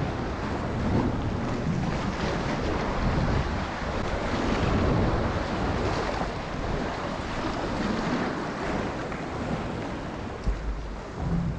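Ocean waves washing and sloshing, with wind buffeting the microphone; a short low thump about ten seconds in.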